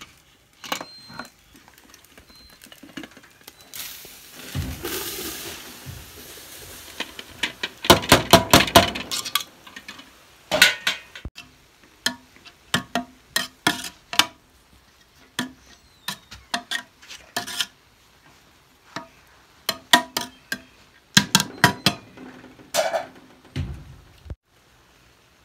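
Slotted metal ladle clinking and scraping against a metal cooking pot as cooked rice is turned over: an irregular run of sharp clinks, with the thickest clusters about eight seconds in and again near the end, and a stretch of softer rushing noise about four seconds in.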